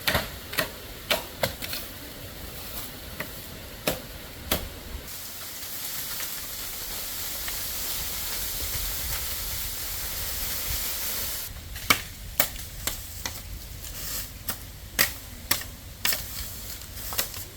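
Irregular sharp knocks and cracks of bamboo being cut and handled, the loudest about twelve seconds in. For several seconds in the middle a steady high hiss covers them, then stops abruptly.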